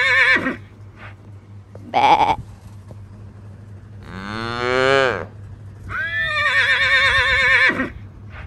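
Dubbed farm-animal calls. A short call comes about two seconds in, a call rising in pitch follows around four to five seconds, and a long wavering call runs from about six seconds to nearly the end.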